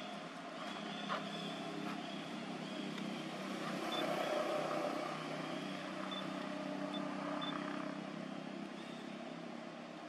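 A motor vehicle's engine running in the background, growing louder about four seconds in and easing off after about eight seconds.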